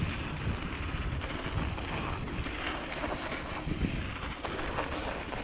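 Mountain bike rolling along a snowy trail: tyres on packed snow and wind on the microphone make a steady rushing noise, with a few small knocks from the bike.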